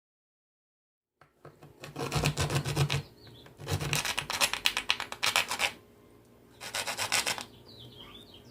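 A serrated knife sawing and rasping a groove into the trash can's battery-compartment housing to make room for wires, in three bouts of fast rough strokes after a moment of silence.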